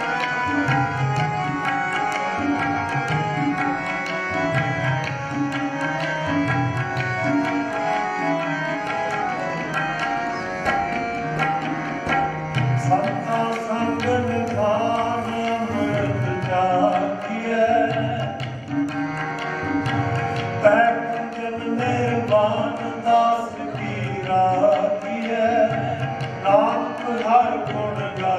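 Sikh kirtan music: tabla keeping a steady rhythm under sustained harmonium chords, with a voice singing a gliding melody over them in the later part.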